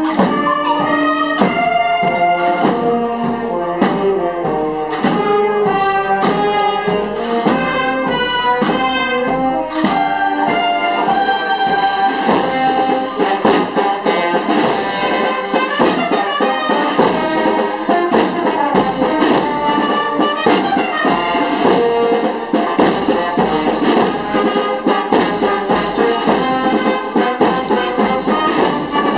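Brass band playing a slow processional march, trumpets and trombones carrying the melody over a steady beat.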